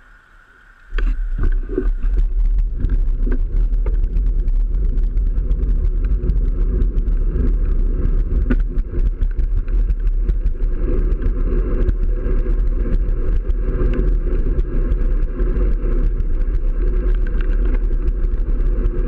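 Wind buffeting the microphone of a handlebar-mounted camera, with tyre and road noise, as a road bike rides off from a standstill. The rumble starts suddenly about a second in and stays loud and steady, with a few clicks as the bike gets going.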